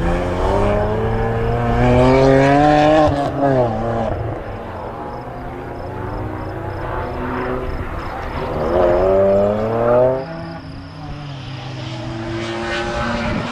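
BMW 130i rally car's straight-six engine revving hard under acceleration, its pitch climbing, with a lift off the throttle about three and a half seconds in. It climbs again and cuts off sharply about ten seconds in, then revs up more quietly near the end.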